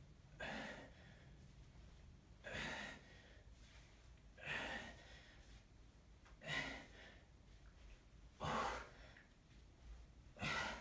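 A man breathing hard through a set of bent-over barbell rows: a forceful breath with each rep, about every two seconds, six in all.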